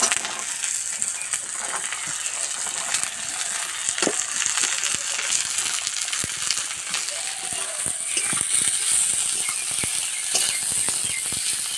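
Chopped vegetables sizzling in hot ghee and oil in a kadai, a steady frying hiss, with the metal spatula clicking and scraping against the pan as they are tipped in and stirred.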